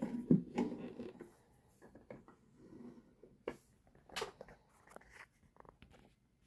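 Handling noise close to the microphone: rustling and scattered light clicks and taps, loudest and densest in the first second.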